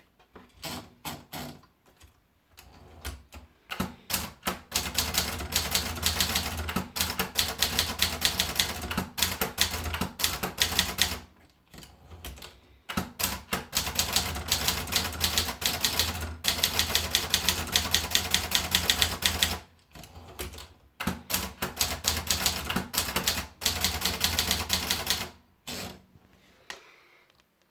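Contessa De Luxe manual typewriter being typed on: fast runs of sharp key strikes in three long bursts, with brief pauses between lines.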